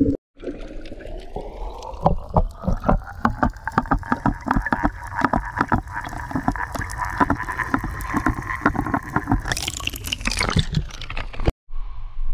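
Underwater audio from a camera on a coral reef: dense crackling clicks over a motor-like drone that rises in pitch for the first couple of seconds and then holds steady. Near the end comes a brief hiss of splashing, and after a cut, a low steady wind rumble.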